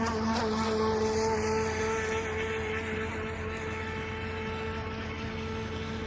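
HJ806 radio-controlled speedboat's electric motor running at a steady pitch with a whine, a little louder about a second in and then slowly easing.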